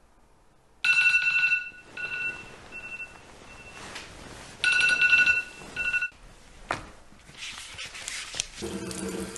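Smartphone alarm ringing: a bright chime on two steady pitches with a fast-fading echo, sounding twice. It is followed by a single click and then rustling and shuffling sounds near the end.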